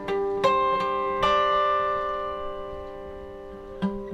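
Background music on acoustic guitar: a few plucked notes in the first second and a half, then a long note that rings and slowly fades, with another pluck near the end.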